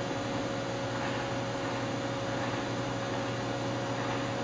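Steady machine hum: a constant tone over an even hiss, with no distinct knocks or clicks.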